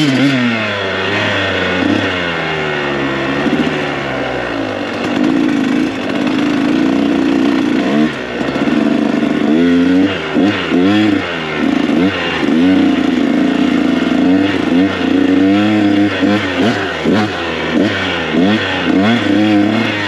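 KTM 125 SX two-stroke dirt bike engine being ridden, its note falling as it slows over the first few seconds, then rising and falling again and again as the throttle is worked and gears change.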